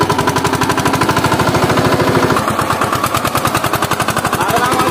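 Single-cylinder diesel engine of a VST 130 DI power tiller running with a loud, rapid, even chug of about nine beats a second. A brief rising tone joins near the end.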